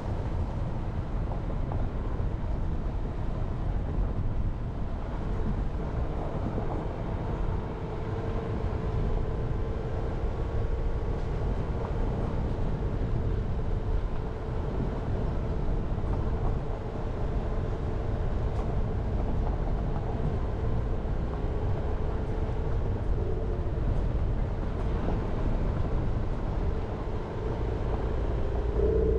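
Jeep Renegade being driven: a steady low rumble of engine and tyres on the road, with a faint engine hum that wavers a little as the speed changes.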